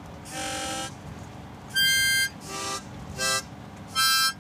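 A harmonica blown in five short separate chords, the loudest about two seconds in, over the steady low drone of the moving van.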